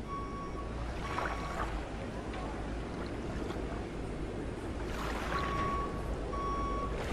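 Background sound bed under the documentary: a steady rushing wash like surf or water, with a short high tone that sounds in brief beeps several times, grouped near the start and from about five seconds in.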